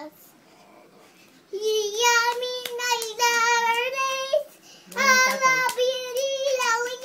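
Young girl singing in two phrases: the first begins about a second and a half in and holds a steady note, and the second starts about five seconds in after a short pause.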